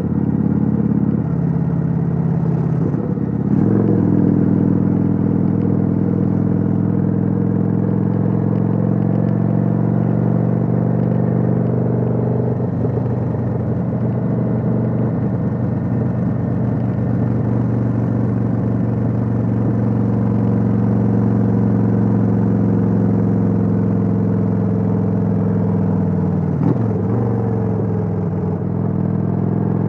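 Kawasaki Vulcan 900's V-twin engine running steadily under way, heard from on board the bike. The engine note changes briefly about four seconds in and dips and rises again about 27 seconds in.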